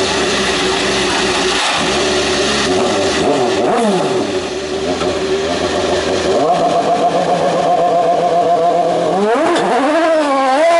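Honda HSV-010 GT race car's 3.4-litre V8 running at idle with a quick blip about four seconds in. It then holds at higher revs and revs up and down twice near the end as the car pulls away.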